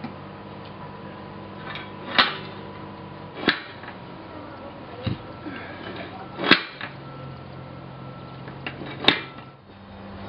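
Box car mover clanking against the rail and caboose wheel as it is levered stroke by stroke to inch the caboose along the track: about five sharp metallic clanks a second or two apart, over a steady low hum.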